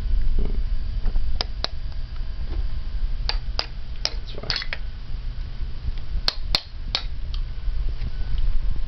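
Small plastic mallets tapping white plastic ice blocks in a Don't Break the Ice game frame, knocking blocks loose. The taps are sharp, light clicks, in pairs and small clusters, over a low steady rumble.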